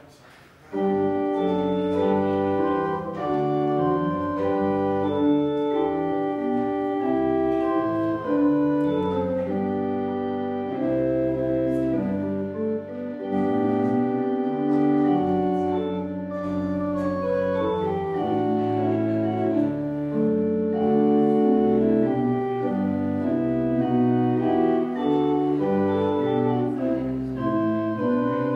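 Pipe organ playing the postlude, full sustained chords that change from one to the next. It comes in suddenly about a second in.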